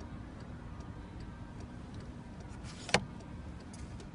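Faint regular ticking, about two or three ticks a second, over a low steady background rumble, with one sharp click about three seconds in.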